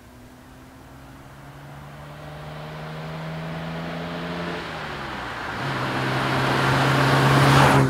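1967 Austin-Healey 3000 MkIII's straight-six engine and exhaust as the car drives up, growing steadily louder as it approaches. The engine note drops briefly about halfway through, then holds steady and loudest near the end.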